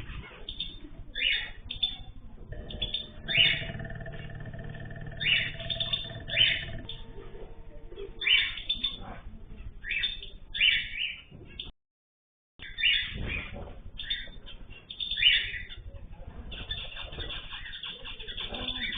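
Cage birds chirping: many short, repeated calls. A steady tone runs beneath them from about three to seven seconds in, and the sound cuts out completely for under a second near the twelve-second mark.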